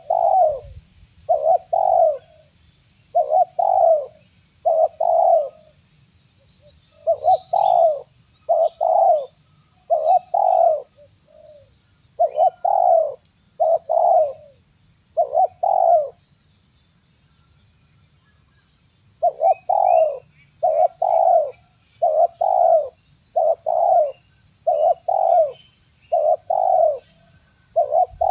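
Spotted doves cooing: short, low coo notes in twos and threes, repeated steadily, with a pause of about three seconds past the middle.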